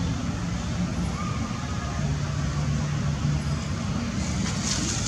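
Steady low engine-like rumble, as of a motor vehicle running, with a brief higher hiss near the end.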